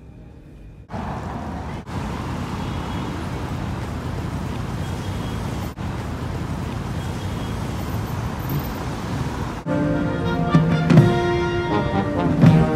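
Road traffic on a busy cobbled roundabout: cars and a bus going by in a steady noise. About ten seconds in it gives way to a uniformed marching band playing, brass with sousaphones and snare and bass drums beating.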